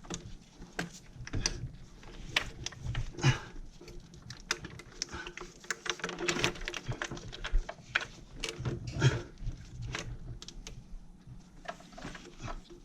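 Irregular small clicks, taps and rattles of plastic connectors and retaining clips being worked by hand on a Mustang GT's intake manifold.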